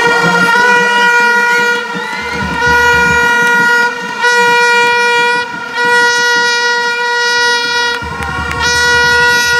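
A fan's horn held on one steady, high pitch, blown in a string of long blasts of one to two seconds each, with short breaks between.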